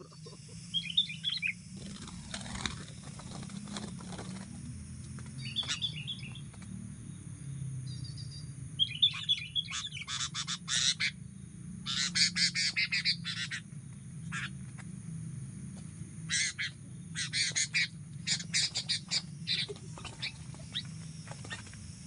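Sooty-headed bulbuls calling while a wild bird fights a tethered decoy bulbul on the ground: scattered short chirps, then several bursts of rapid, harsh chattering, each a second or two long.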